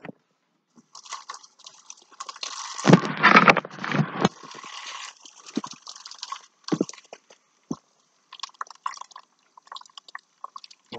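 Kitchen faucet running into the sink while a small catfish is rinsed under the stream by hand, with irregular splashes and knocks of handling, loudest about three seconds in.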